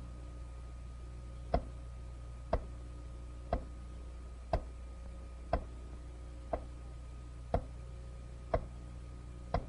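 Sharp ticks evenly spaced about once a second, like a clock or timer counting off seconds while the flow deforms, over a faint steady low hum.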